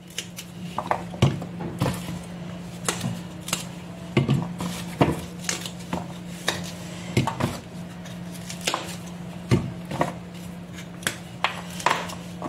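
Fresh young broad-bean pods being cut into pieces by hand: irregular crisp clicks and snaps, one every half second to a second, over a steady low hum.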